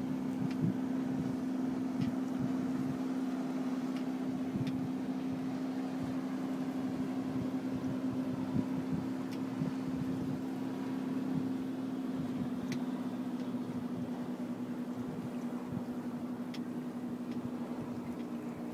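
A boat engine running steadily at an even pitch, with a few faint ticks over it.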